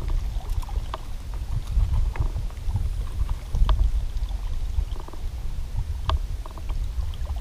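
Wind buffeting the microphone as a low, uneven rumble, with scattered light clicks and ticks over it.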